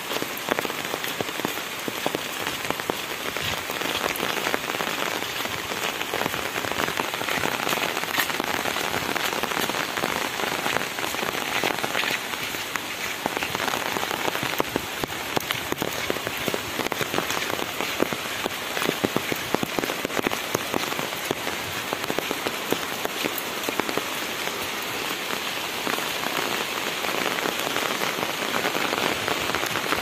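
Heavy rain falling steadily, with a dense patter of drops striking an umbrella.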